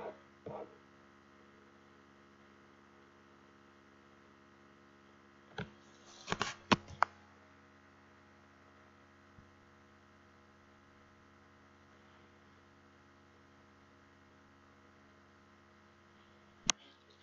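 Steady low electrical hum with several sharp clicks bunched about six to seven seconds in and a single click near the end.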